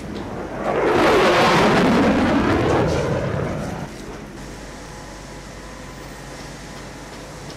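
An F-16 Fighting Falcon's jet engine as the fighter flies past: the roar swells about a second in and sweeps down in pitch, then drops off sharply near four seconds, leaving a steady, quieter rumble.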